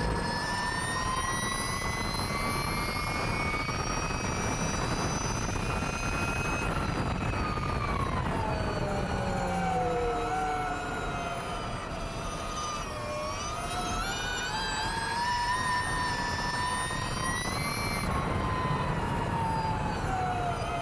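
Ducati V21L electric MotoE racing motorcycle at speed, heard onboard: a high electric motor and drivetrain whine that falls as the bike slows about seven seconds in, is lowest around thirteen seconds, rises again under acceleration and drops once more near the end. Steady wind rush lies under it.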